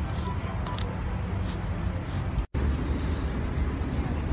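Steady outdoor background noise with a low rumble. It drops out for an instant about two and a half seconds in, then carries on.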